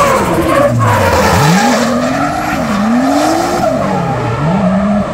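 Toyota JZX sedan drifting: its engine revs rise and fall several times as the throttle is worked through the slide, over the steady hiss and squeal of the rear tyres spinning and sliding on the asphalt.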